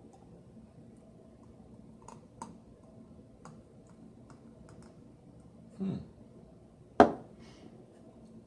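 Scattered light clicks and taps from kitchen items being handled during drink preparation, then a dull knock just before six seconds and a sharp hard clack about seven seconds in, the loudest sound.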